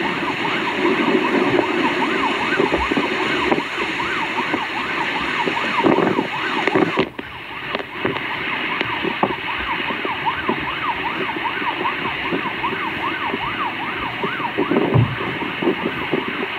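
Electronic siren wailing in quick, repeated rising-and-falling sweeps over the steady rush of storm wind and rain.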